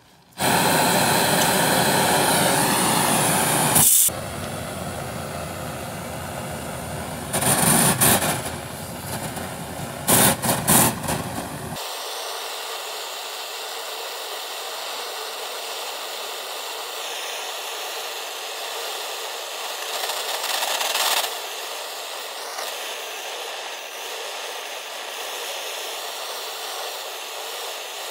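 Namilux butane canister blowtorch running with a steady hissing flame as it heats a steel sword blade. It is loudest for the first few seconds, surges briefly twice around 8 and 10 seconds in, then settles to a quieter, even hiss.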